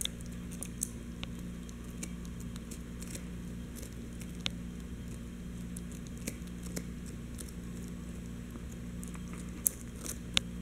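A merle Chihuahua chewing a knotted rawhide bone: scattered short clicks and crunches of teeth on the rawhide, with a couple of sharper clicks near the end.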